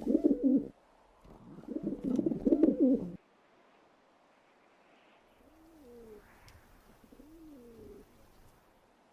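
Pigeons cooing: two loud, throaty coo phrases in the first three seconds, then two fainter coos later.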